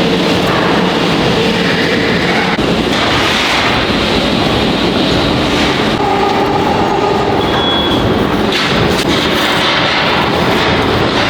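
Loud, continuous factory metalworking noise, a dense rattling clatter of machinery and tools on sheet metal, with a brief high squeal about eight seconds in.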